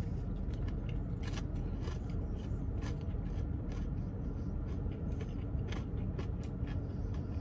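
Biting and chewing a crunchy breaded chicken sandwich with bacon: many short, crisp crackles scattered throughout, over a steady low rumble.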